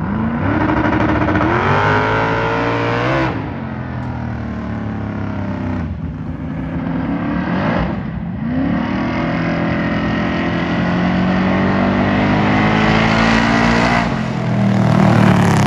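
A car engine under hard acceleration, its pitch climbing, breaking off sharply about three seconds in as at a gear change, then climbing again from about eight and a half seconds on.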